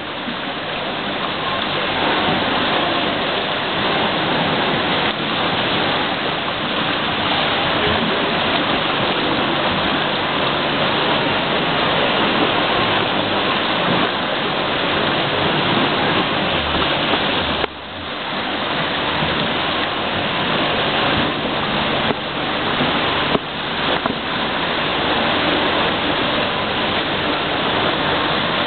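Continuous rushing, splashing water in a pool, steady throughout, with a brief drop about two-thirds of the way in.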